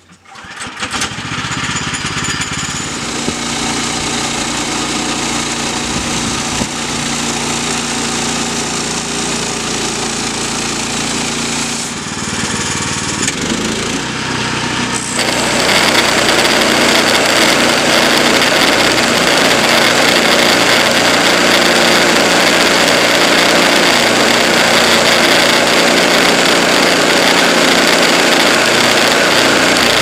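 Woodland Mills HM122 bandsaw mill's small gasoline engine starts and runs steadily. About halfway through it gets louder and harsher as the band blade bites into the ash log and saws along it.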